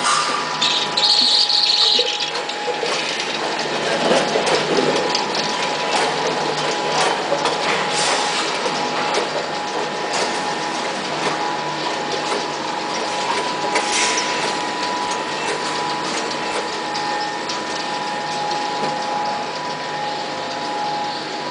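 A 10-head multihead weigher feeding dumplings into a vertical packing machine, running with a steady two-note machine hum. Over it come clatter and sharp clicks every few seconds as the dumplings shake along the feed pans and the weigh-hopper gates open.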